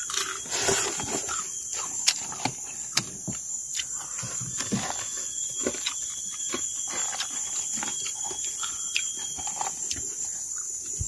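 Eating with the fingers: chewing and mouth sounds, with irregular small clicks and knocks from hands in plastic lunchboxes of rice and fish. Behind it runs a steady high chorus of night insects.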